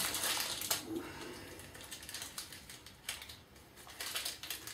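Light clicks and rustling from hands picking at something small, in three short spells: near the start, about three seconds in, and near the end.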